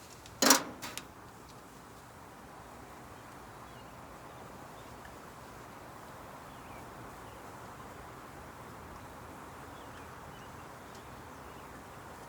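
A single loud clack about half a second in, with a couple of lighter clicks right after it, then a steady faint hiss of outdoor background.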